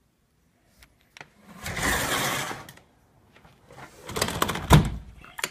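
Sliding glass patio door rolling along its metal track, a rumbling slide of about a second, then a second rougher slide with clicks and a sharp knock near the end.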